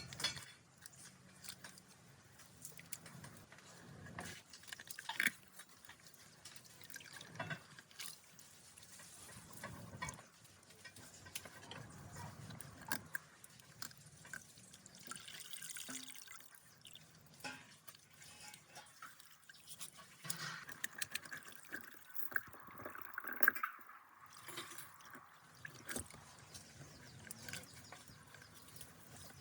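Water dripping and splashing, with scattered small clicks and rustles from wet debris being cleared out of a clogged culvert drain.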